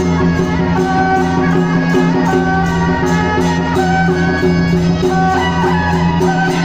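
Traditional temple procession music: a wind-instrument melody over a steady drone, with a regular percussion beat.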